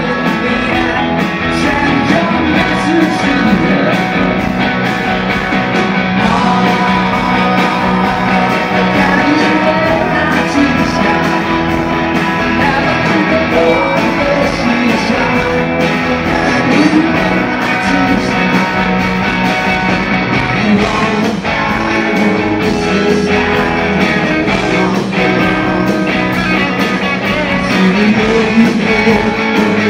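Rock band playing live: electric guitars, bass and drums, with a man singing.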